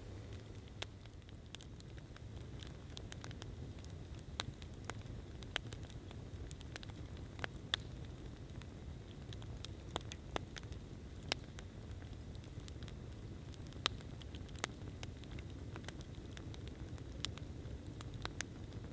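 Wood campfire crackling: irregular sharp pops and snaps, a few of them louder, over a steady low rumble.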